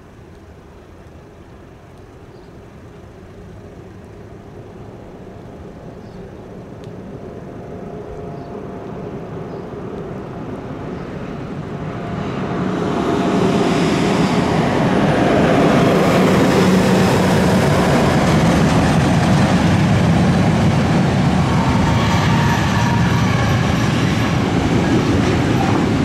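Freight train hauled by ÖBB class 1144 and class 1116 Taurus electric locomotives approaching a level crossing. It grows steadily louder, turns abruptly loud about halfway in as the locomotives reach the crossing, then gives a steady loud rumble of wheels and wagons rolling past.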